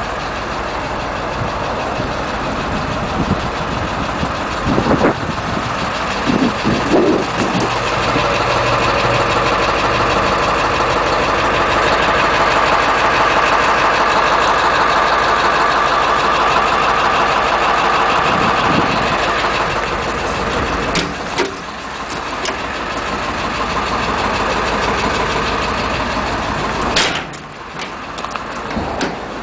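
International T444E 7.3-litre turbo diesel idling steadily, louder through the middle stretch. A few short knocks early on and a couple of sharp clicks near the end.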